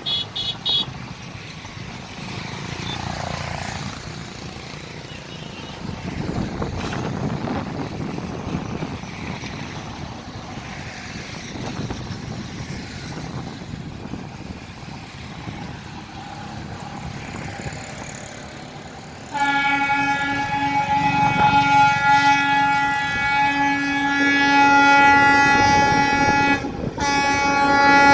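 Freight train approaching with a low, steady rumble; about two-thirds of the way in, the locomotive's horn starts a long, continuous blast that drops out for a moment near the end and resumes.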